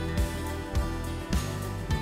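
Background music with a steady beat, a little under two beats a second.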